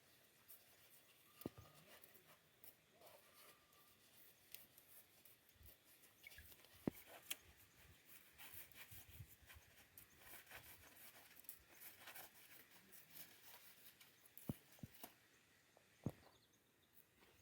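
Near silence with faint scattered clicks and a few light knocks, one about 7 seconds in and a pair near the end.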